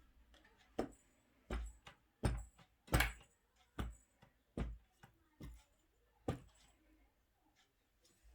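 A fork stabbed again and again into a raw duck, giving a sharp tap with each stab, about eight in all, a little faster than one a second.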